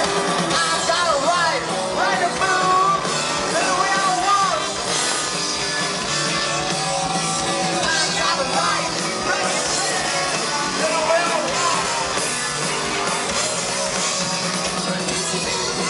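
Live punk rock band playing loud, with a voice singing over it, heard from within the audience.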